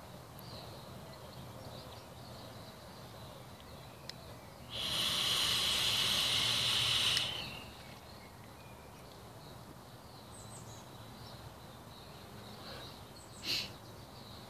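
A steady breathy hiss of about two and a half seconds, starting about five seconds in, with a shorter one near the end: long puffs on an e-cigarette vape mod set to 76.5 watts.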